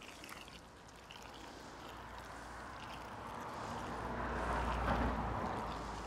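Road traffic: a passing vehicle whose rumble swells to a peak about five seconds in and then fades. Underneath, a thin stream of water from a watering can splashes onto dry peat.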